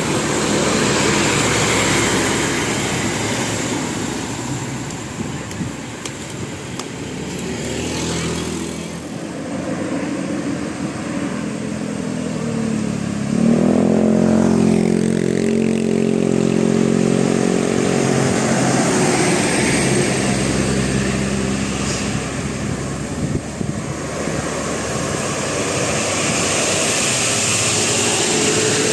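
Road traffic passing by, with a heavy vehicle's engine droning loudly past from about 13 seconds in, its pitch rising and then slowly falling as it goes by.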